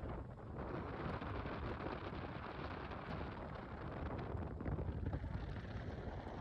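Steady rumbling noise with wind buffeting the microphone.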